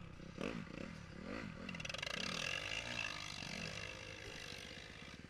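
Dirt bike engine revving up and down over and over, about twice a second, as the throttle is blipped. A second engine running higher joins about two seconds in.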